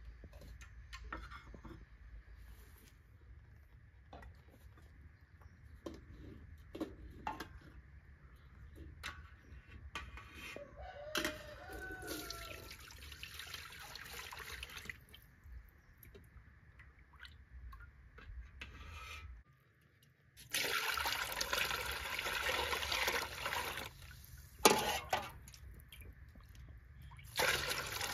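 Liquid running or splashing in three spells of a few seconds each, with small scattered knocks and clatter between them and one sharper knock between the later spells.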